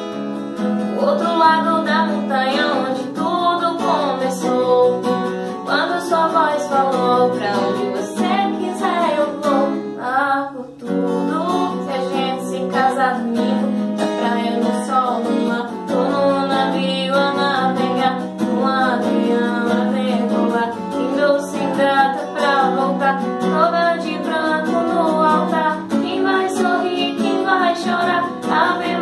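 Acoustic guitar strummed in steady chords under a woman singing the melody, with a brief dip about ten seconds in.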